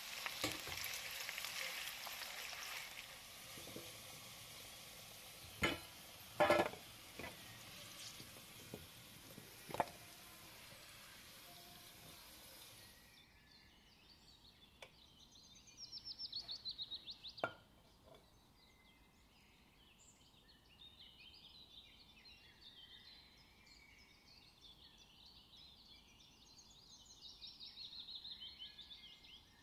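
Potato wedges sizzling as they fry in oil in a wok, loudest at first, with a few sharp clinks. The sizzling cuts off about halfway through, leaving faint bird chirps.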